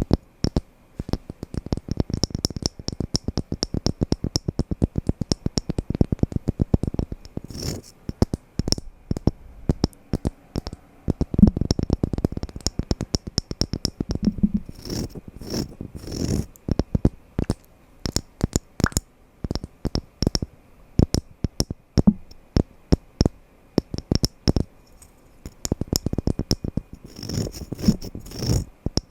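Wooden blocks knocking and clacking together in rapid runs of sharp knocks, several a second, with short pauses between runs.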